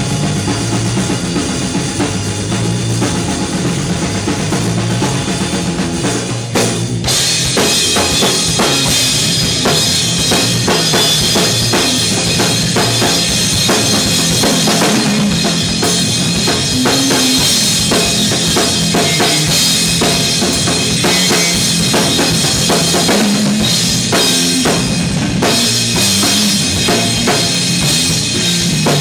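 Live rock band playing an instrumental: a drum kit over low, sustained amplified notes. About seven seconds in the drums come in harder, with a dense beat and crashing cymbals.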